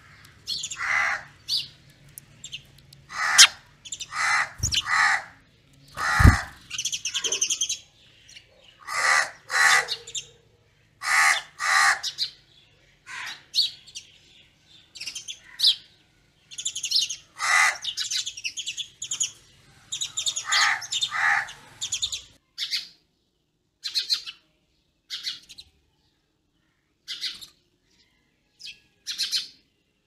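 Common mynas calling: a string of short, harsh, chattering calls, often two or three in quick succession, coming thick and fast, then thinning to scattered single calls after about twenty seconds.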